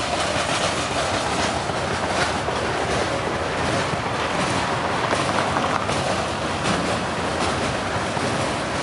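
Freight train cars rolling past at close range: a steady rumble and rush of steel wheels on rail, with irregular clacks from the wheels.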